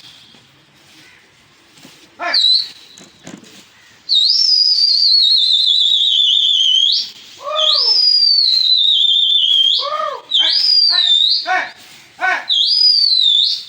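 A high, quavering whistle that slides down in pitch, heard four times: two long ones of about three seconds, then two short ones. Crows caw repeatedly in between.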